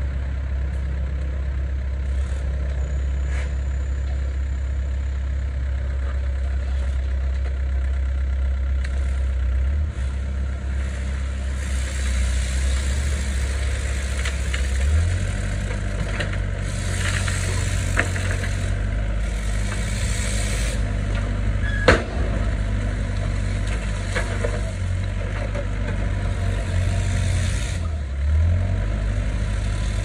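Doosan excavator's diesel engine running steadily under the hydraulic work of digging and swinging, its low hum stepping up in pitch twice as the load changes. Stretches of hiss come and go through the middle, and there is one sharp knock about two-thirds of the way in.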